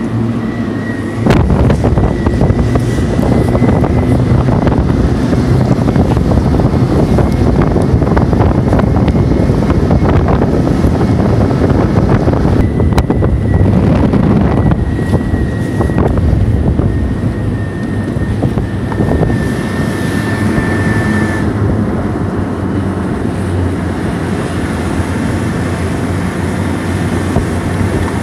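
Engine of an all-terrain vehicle on low-pressure tyres running under load as it drives, louder from about a second in, with a thin steady high whine over it that fades out about three quarters of the way through.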